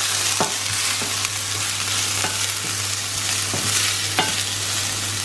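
Chopped onions sizzling in an oiled skillet while a wooden spatula stirs them, with a few light scrapes against the pan.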